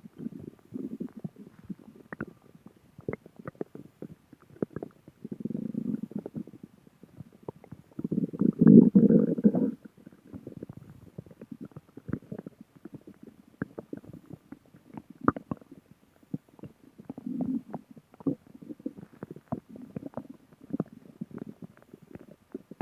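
A person's stomach growling: low rumbles broken up by many short gurgling pops. The longest and loudest growl lasts about a second and a half, a little before the middle, with shorter growls before and after it.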